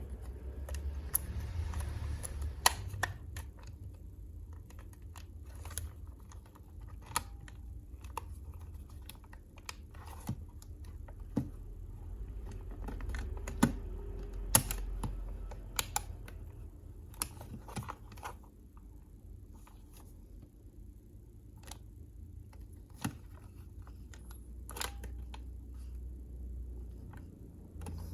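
Scattered, irregular clicks and taps, a few of them sharper and louder, over a steady low hum: a Sony TCM-81 cassette recorder being handled.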